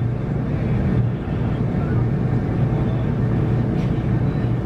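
Steady low engine rumble heard from inside a moving vehicle's cabin.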